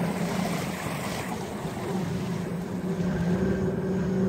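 Outboard motor of a small open boat running steadily, with water washing along the hull and some wind on the microphone.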